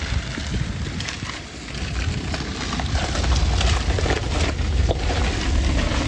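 Maruti Suzuki Ertiga car driving slowly past at close range on a rough dirt lane, engine running and tyres crunching over grit and stones with an irregular crackle; it gets louder about two seconds in as it comes alongside.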